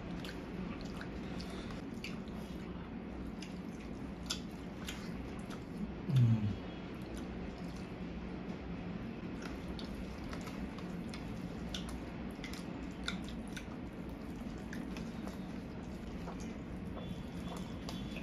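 Close-up eating sounds of people eating rice with their hands: chewing, wet squishing as fingers knead rice with gravy, and many small clicks and smacks. About six seconds in comes one short low vocal sound, the loudest moment.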